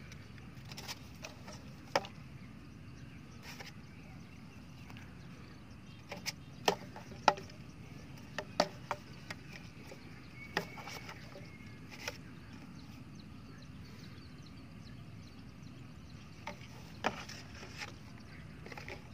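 Scattered short, sharp clicks and taps over a low steady background rumble, the loudest bunched about six to nine seconds in.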